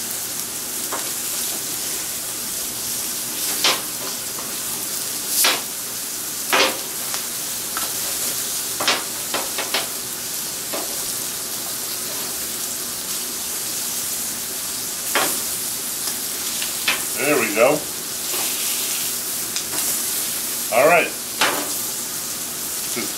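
Food sizzling steadily on a hot flat-top griddle, with irregular sharp taps and scrapes from a metal spatula edge chopping onions against the steel plate.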